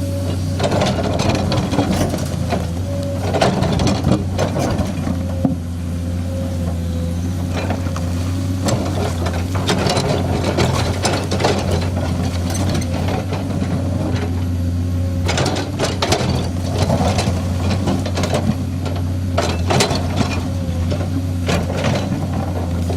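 Komatsu hydraulic excavator's diesel engine running with a steady hum, a faint whine coming and going above it, while the machine works rock. Sharp knocks come again and again, in clusters about 10 seconds in, around 16 seconds and around 20 seconds.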